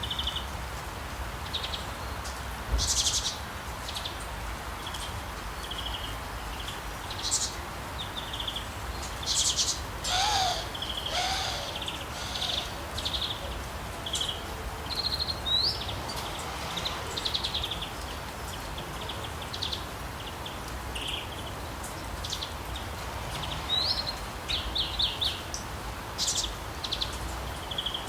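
Small birds chirping and trilling in short phrases over a steady hiss of rain, with a low rumble underneath.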